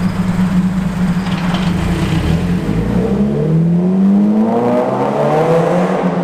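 Subaru BRZ's flat-four engine running through its exhaust: a steady idle, then a slow rev about halfway through, the pitch rising and falling back to idle near the end.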